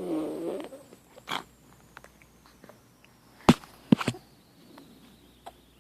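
A short wavering, pitched vocal noise, then a few sharp clicks or knocks, the loudest two about three and a half and four seconds in.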